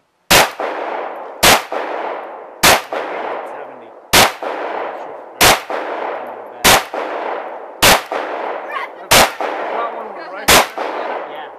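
Pistol fired nine times at a steady, unhurried pace, about one shot every second and a quarter, each shot trailing a long echo.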